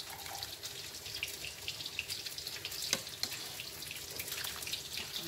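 Tempe frying in hot oil, crackling and sizzling steadily, with liquid sloshing as a ladle stirs a pot of meatball soup. One sharp knock about three seconds in.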